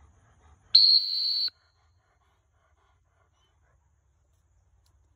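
One blast on a retriever training whistle, a steady high tone just under a second long and loudest at its start: a single sharp blast of the kind used to stop the dog on a blind.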